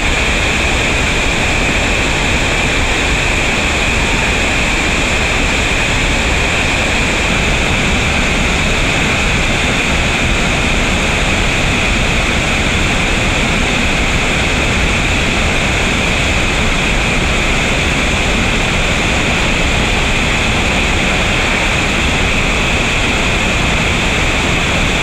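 Rushing whitewater rapids and a waterfall, loud and steady throughout.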